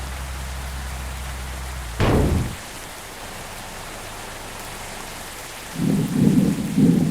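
Steady rain hiss over a low hum. About two seconds in, the hum cuts off with a sharp crack of thunder, and near the end a loud low rumble of thunder rolls in.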